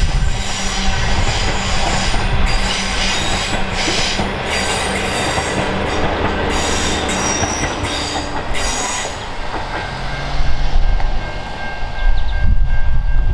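The Ghan's stainless-steel passenger carriages rolling away around a curve: wheels clacking on the rails with a high wheel squeal. The train sound thins out after about nine seconds, and a low rumble rises near the end.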